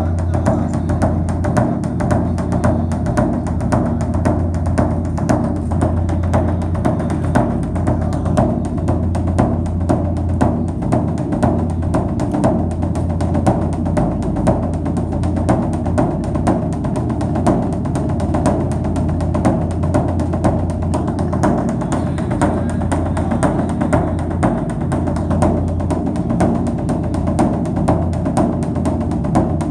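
Background music carried by steady, fast repeated drum or percussion strokes over a sustained low tone.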